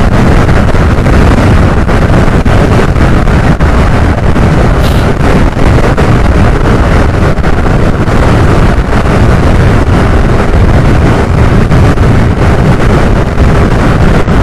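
Loud, steady wind rush buffeting the microphone of a Suzuki scooter riding at about 89 km/h on an open highway, mixed with the scooter's running and tyre noise.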